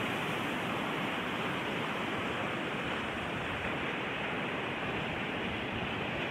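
Steady rushing noise of surf breaking on a sandy beach.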